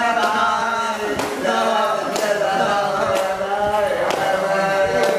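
A man singing unaccompanied, holding long notes that slide between pitches, with a sharp clap or tap about once a second.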